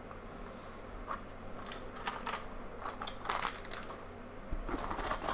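A few short crinkles and rustles of a foil booster-pack wrapper and its clear plastic insert being handled, growing denser near the end.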